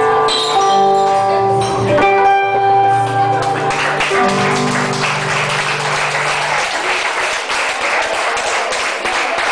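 Acoustic guitars ringing out the final chords of a song, a low note held until about six and a half seconds in. Audience applause starts about four seconds in and carries on.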